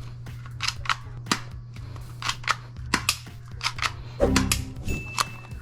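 Airsoft pistol firing, about a dozen sharp snapping shots at an uneven pace over a low steady hum, with a brief low buzz a little past four seconds in.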